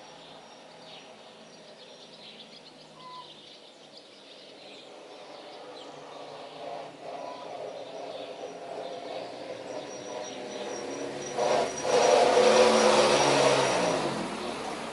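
Birds chirping faintly, then a vehicle approaches and passes close by. It is loudest about three-quarters of the way through, and its engine note drops in pitch as it moves away.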